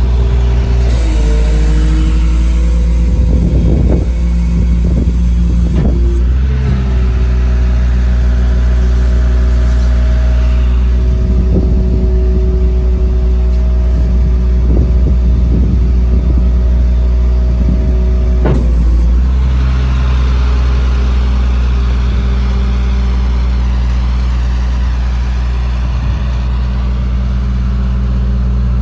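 2005 Chevrolet C6500 rollback tow truck's engine running with a steady hydraulic whine while the aluminium bed is worked, with occasional clunks. About 19 seconds in the whine stops and the engine drops back to idle.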